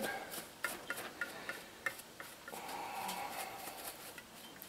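Faint, scattered small ticks as Old Bay seasoning is shaken from its tin onto raw chicken.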